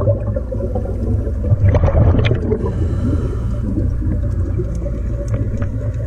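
Scuba regulator exhaust bubbling underwater, heard over a steady low drone, with a louder burst of bubbles about two seconds in.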